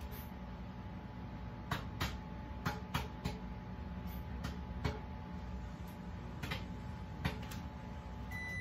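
Microwave oven running with a bag of microwave popcorn inside: a steady hum with scattered sharp pops. A steady beep starts just before the end.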